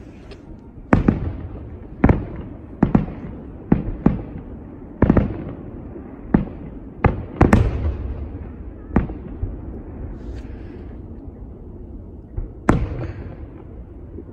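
Aerial fireworks shells bursting: a string of sharp bangs with echoing tails, about one a second at first. The bangs thin out later, with a last bang a couple of seconds before the end.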